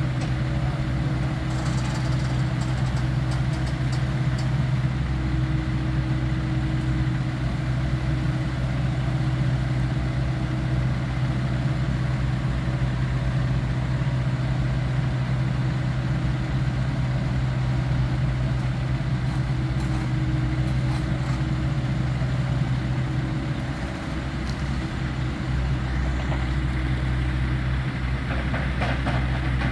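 A heavy machine's engine running at a steady speed, a constant low hum.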